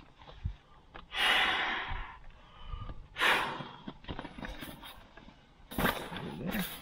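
A person blowing into the valve of an inflatable camping pillow to inflate it: three long puffs of rushing breath, roughly two seconds apart.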